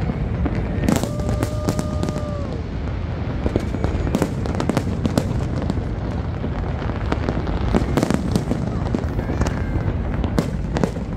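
Large aerial fireworks display: a dense, continuous barrage of bangs and crackling bursts over a steady low rumble of shells going off.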